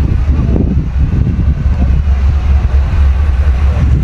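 Motor vehicle engine running with a steady, heavy low rumble.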